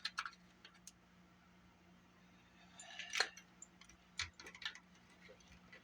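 Small electronic parts (spare jacks) clicking and rattling in a container as it is rummaged through: scattered light clicks, with a brief cluster of rustling and clicks about three seconds in and a few more sharp clicks about a second later.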